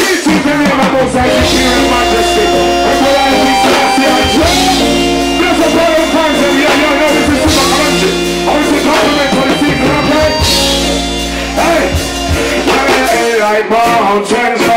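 Reggae song with a voice singing over held chords and a steady bass line; the bass drops out about thirteen seconds in.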